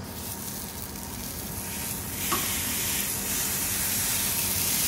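Wagyu sirloin steaks sizzling as they are laid into a hot cast-iron pan, the sizzle growing steadily louder as more meat goes in, with a faint click about two seconds in.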